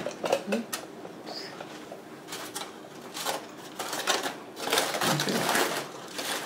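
Aluminium foil crinkling and crackling in irregular bursts as a foil wrap is pulled open around cooked ribs, loudest about five seconds in.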